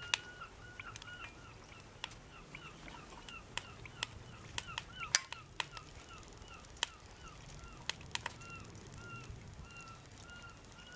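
A bird calling over and over in short hooked notes, two to three a second, with scattered sharp spits and crackles from a frying pan.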